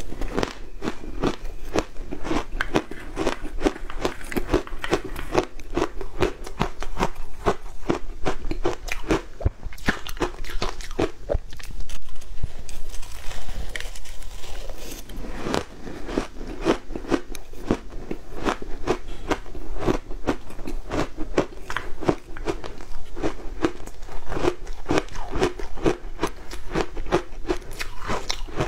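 Shaved ice being bitten and chewed close to a clip-on microphone: dense, rapid crunching, with a softer stretch about halfway through.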